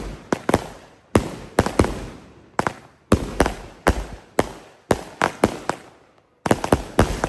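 A 100-shot consumer firework cake firing: a rapid series of sharp bangs, several a second, in clusters separated by short lulls.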